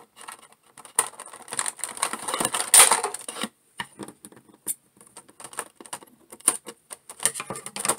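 Scissors cutting plastic toy packaging: a run of snips and plastic crinkling, loudest about three seconds in, then scattered light clicks of plastic parts being handled.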